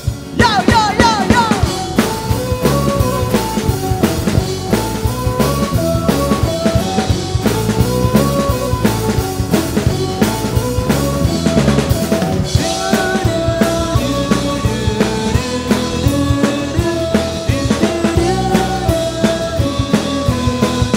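Instrumental passage of a fusion band: a drum kit keeps a steady, busy beat under a melodic lead line, with a quick run of high notes in the first two seconds.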